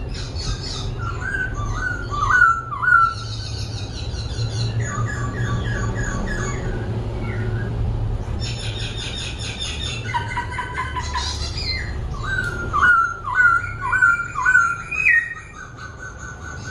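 Laughingthrush (khướu) singing continuously, switching between many phrases: rapid high trills and runs of loud, falling whistled notes, with the loudest runs about two seconds in and again about three quarters of the way through. A steady low hum runs underneath.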